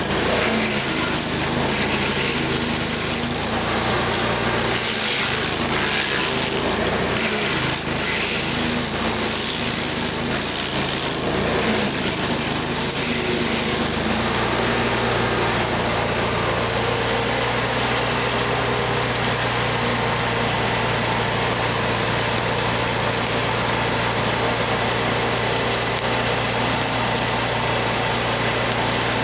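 LASKI F500H stump grinder's engine running under load as its cutter wheel grinds into an ash stump, the sound uneven and broken by chip noise. About halfway through the grinding stops and the engine runs on steadily.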